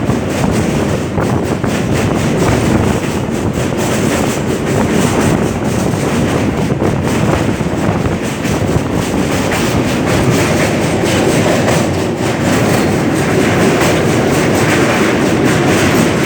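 Train running across a railway bridge, its wheels clattering over the rail joints in a steady, loud rumble.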